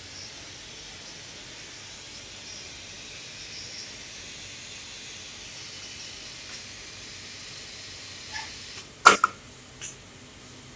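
Steady machine hiss; about nine seconds in, a sharp double clack with lighter knocks just before and after, as the injection-molding take-out robot arm's gripper releases a molded plastic part onto the conveyor.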